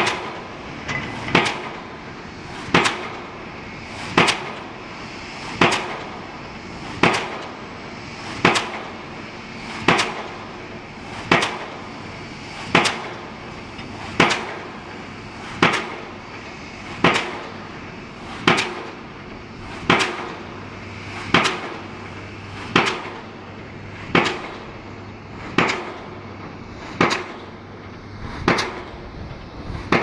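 Diesel impact pile hammer driving a steel pile: a sharp bang with a short metallic ring about every one and a half seconds, in a steady rhythm.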